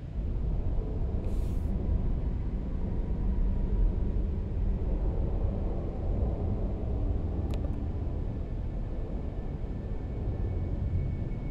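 A low, rumbling ambient drone, with a single sharp click about seven and a half seconds in and a thin, high steady tone that comes in near the end.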